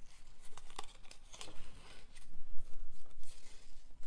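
Paper pennants rustling and crinkling as a gingham ribbon is threaded through the pre-cut slits in the card stock, with small irregular clicks of paper being handled.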